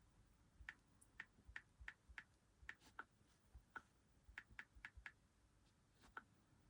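Faint typing: short, sharp clicks in quick, irregular runs, with a pause of about a second shortly after the middle.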